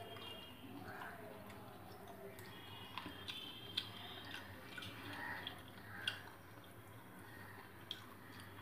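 Faint eating sounds: chewing and fingers mixing rice with curry on a steel plate, with a few sharp clicks scattered through.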